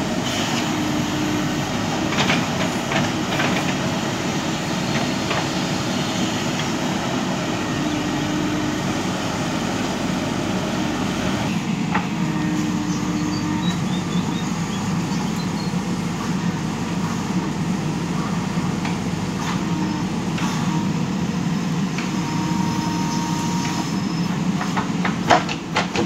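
JCB 3DX backhoe loader's diesel engine running steadily under load while the hydraulic backhoe digs into soil, with a few sharp knocks about two seconds in and a cluster of them near the end.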